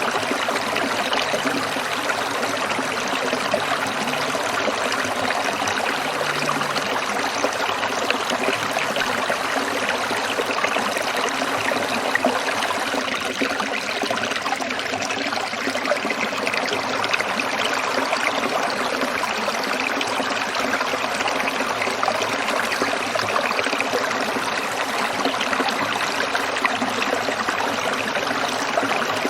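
Water of a small stream trickling and babbling over stones, a steady, even rush without a break.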